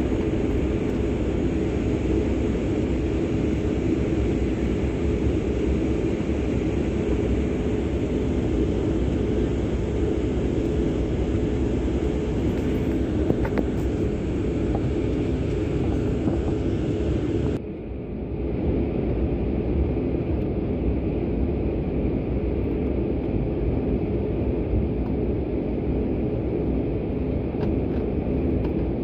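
Jet airliner's engines at taxi power, heard from inside the cabin as a steady rumble with a hum. About two-thirds of the way through, the sound dips briefly and then carries on slightly duller.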